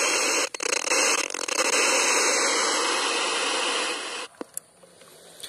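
Portable iBall FM 700 BT radio's speaker giving out a steady hiss of FM static, with a few brief dropouts. The static stops about four seconds in, followed by a couple of faint clicks.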